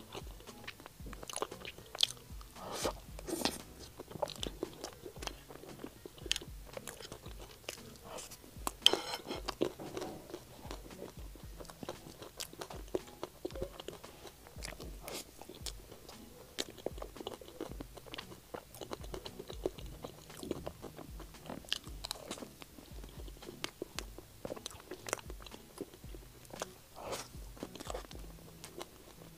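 Close-miked chewing of a soft taro mousse cake with cream and almond slices: wet mouth sounds with many small crunches from the crisp almond slices.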